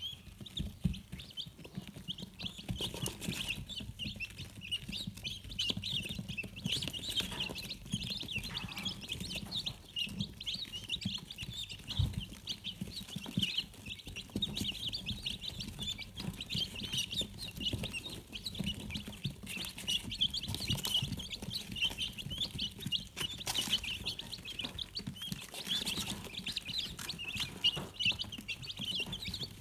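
A brood of baby chicks and guinea fowl keets peeping constantly, many short high chirps overlapping, with a few soft knocks now and then.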